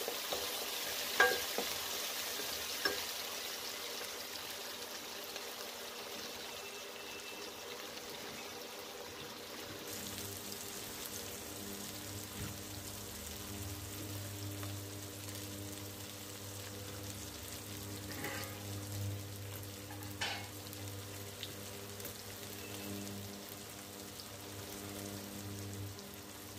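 Chopped onions, green chillies and cumin seeds sizzling steadily in ghee in a steel kadhai. In the first few seconds a wooden spatula stirs and knocks against the pan. A steady low hum joins about ten seconds in.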